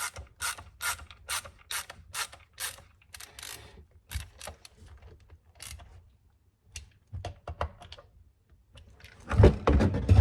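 A ratchet wrench clicking in even strokes, about two a second, as it drives home the bolts of a new bumper dog on a chainsaw. Then come scattered lighter clicks, and a louder clatter near the end.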